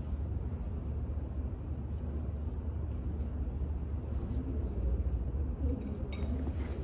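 Steady low rumble of background room noise, with faint distant voices and a short rustle near the end.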